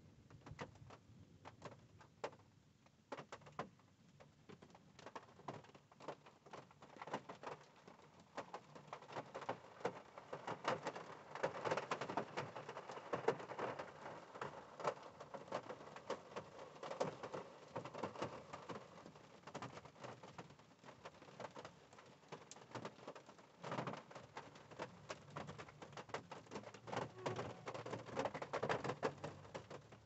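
Rain pattering on a 1985 Cadillac Cimarron, heard from inside the car: a dense patter of drop hits that grows heavier in spells, strongest around the middle and again near the end.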